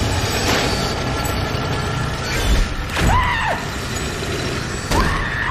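Horror-film sound design: a dense, rumbling noise bed broken by two sudden hits, about three seconds in and near the end. The first hit carries a short screech that rises and falls in pitch.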